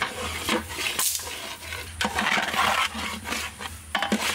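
Dry pulao rice poured into a large metal cooking pot of meat and stirred with a long metal ladle: grains spilling in and the ladle scraping and clinking against the pot as the rice fries.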